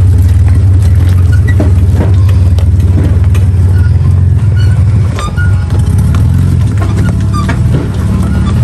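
Mitsubishi Pajero V6 3.0 engine pulling at low speed up a loose rocky track, a steady low drone, with rocks crunching and knocking under the tyres.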